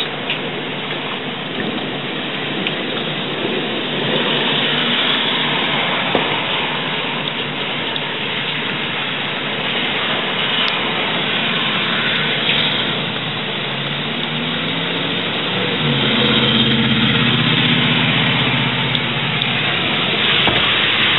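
Heavy rain pouring steadily. About fifteen seconds in, a vehicle's engine hum rises under it for several seconds, like a car going by on the wet street.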